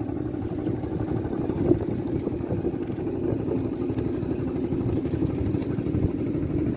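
A small engine running steadily at an even speed, with a constant low hum under rapid pulsing.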